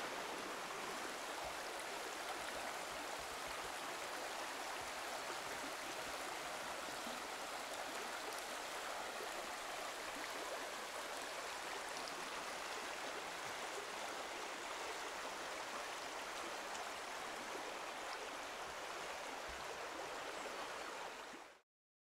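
Shallow forest river running over stones and shallows: a steady rushing and babbling of water that stops abruptly near the end.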